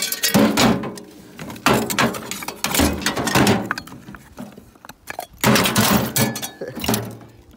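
Pieces of scrap metal clanking and scraping against each other and against sheet-metal appliance panels as they are handled, a string of irregular knocks and rattles.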